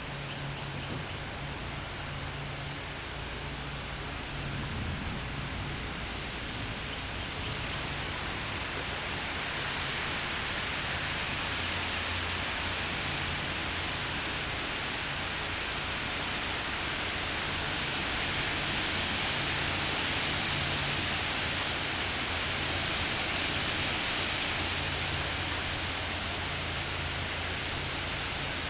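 Strong gusty wind, a steady rushing noise that builds about a third of the way in and stays strong through the rest.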